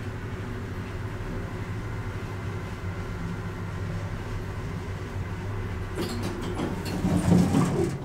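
1992 Schindler passenger elevator car travelling with a steady low hum, then clicking and rattling about six seconds in as it stops and its doors slide open.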